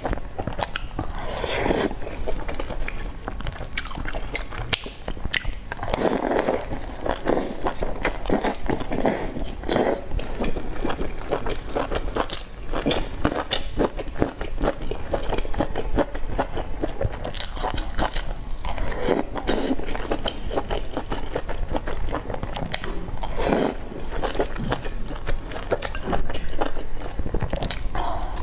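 Close-miked mukbang eating: a person chewing and biting soft, sauce-soaked pieces of spicy pork, full of wet mouth clicks and smacks. A few louder, breathy slurps come about a second in, around six seconds, and twice near the end.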